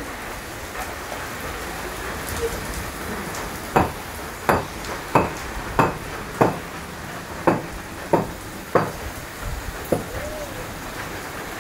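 Steady rain falling: an even, dense hiss. Midway, a run of about eight sharp smacks come roughly two-thirds of a second apart, and a brief voice sounds near the end.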